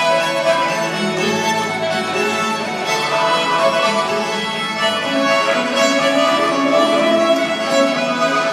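Live traditional string-band music: a fiddle and a harmonica carry the tune over strummed acoustic guitar.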